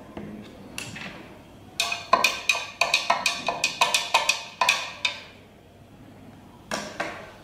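A stirring rod knocking rapidly against the inside of a clear jug as milk is stirred into the water: a run of ringing taps, about five a second for some three seconds, then one more knock near the end.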